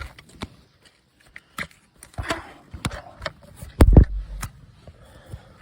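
Scattered clicks and knocks of a portable tire inflator's plug, cable and hose being handled and plugged in, with one heavy low bump about four seconds in.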